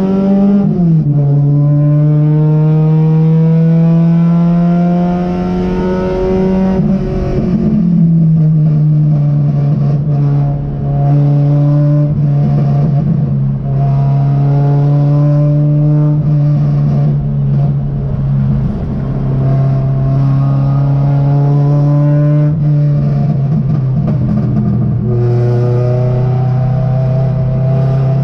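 Race car engine heard from inside the stripped cockpit under hard driving. Its pitch climbs steadily under acceleration and drops back several times, with a sharp fall near the start and again about seven seconds in.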